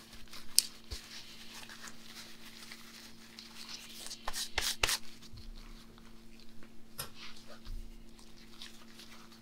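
Quiet rustling and crinkling of a paper towel as gloved hands wipe excess grease off a freshly re-greased, resealed ball bearing, with a few light clicks and a steady low hum underneath.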